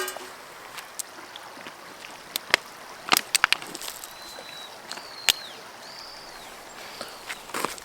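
Steady rushing of running water, with a cluster of sharp clicks and knocks about three seconds in, single clicks later on, and a few short high calls in the second half.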